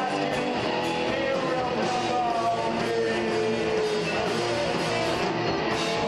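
Rock band playing live: electric guitar holding long, slightly bending notes over drums and crashing cymbals, at a steady loudness throughout.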